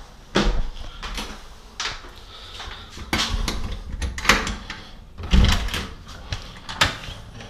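Footsteps on stairs, then a metal lever door handle clicking as a door is unlatched and opened. There are a series of separate knocks and clicks, the loudest a low thump about five seconds in.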